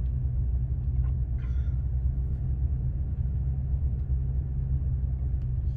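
Steady low rumble of a moving car, its engine and tyre noise heard from inside the cabin.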